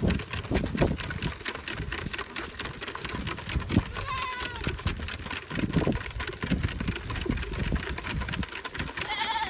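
Goat kids bleating: two wavering calls, one about four seconds in and another near the end. Between them runs a constant patter of short clicks and scuffles from the crowding kids.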